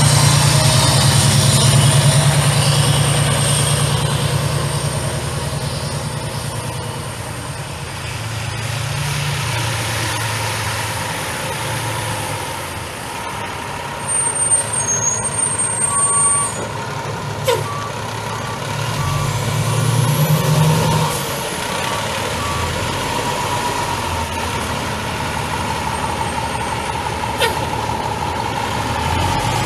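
The Cummins ISM 10.8-litre inline-six diesel of a 2003 Pierce Quint ladder fire truck running, its pitch rising and falling several times. A short run of beeps comes about halfway through, and two sharp air hisses follow later, one near the end.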